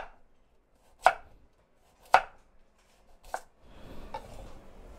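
Chef's knife slicing through a carrot onto a wooden cutting board: four sharp knocks about a second apart, the last one lighter, then a softer scraping near the end as the carrot pieces are pushed together on the board by hand.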